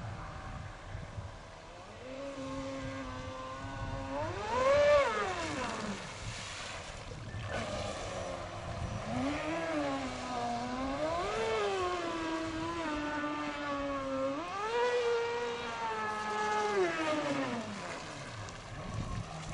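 Radio-controlled speedboat's Castle Creations 2028 780 kV brushless electric motor and 70 mm propeller whining as the boat runs across the water. The pitch climbs and falls several times with the throttle, holds high for a few seconds, then drops away near the end.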